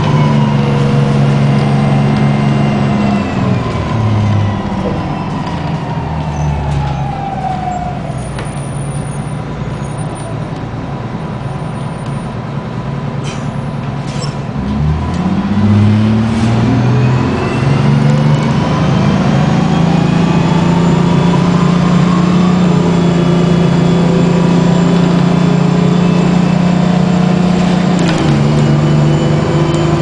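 Detroit Diesel 6V92TA two-stroke V6 diesel of a 1994 New Flyer D40 transit bus, heard from inside the passenger cabin. The engine note falls in the first few seconds as the bus slows and stays low for several seconds. About fifteen seconds in it climbs again in steps as the bus pulls away, then settles into a steady cruise for the last third.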